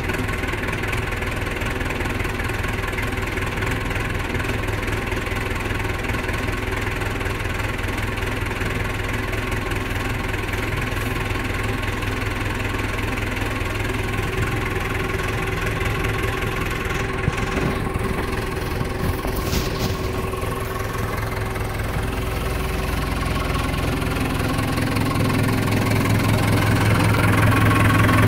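JCB 3CX backhoe loader's four-cylinder Perkins diesel engine idling steadily, still cold just after a start in −13 °C frost. It grows louder over the last few seconds.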